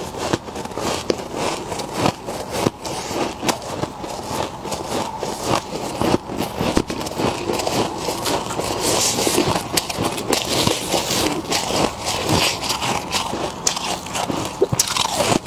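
Thick freezer frost crunching and crackling as gloved hands scrape it off the walls of a chest freezer and squeeze it into clumps, a dense run of small crisp crackles.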